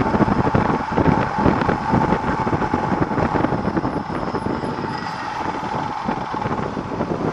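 Motorcycle running at road speed, its engine mixed with steady wind noise on the camera's microphone.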